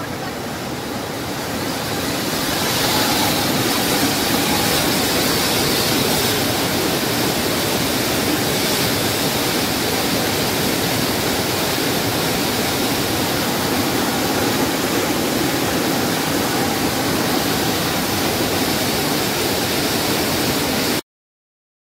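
A river in full flood rushing past, a steady roar of turbulent brown floodwater overtopping its banks. It grows louder about two seconds in, then holds level and cuts off suddenly near the end.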